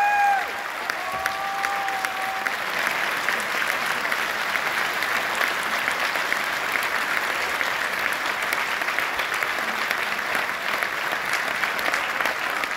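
Theatre audience applauding steadily, a dense even clatter of many hands clapping, with a long cheer from one listener rising over it just after the start.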